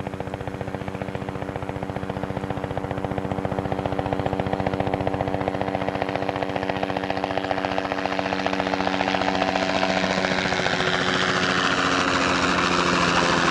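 Helicopter approaching and passing low overhead, its rapid rotor chop and engine getting steadily louder, with a rising rush of noise as it comes close.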